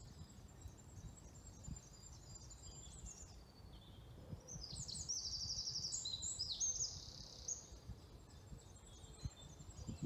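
Woodland birds singing: runs of high, quickly repeated notes, louder through the middle, over a faint low rumble.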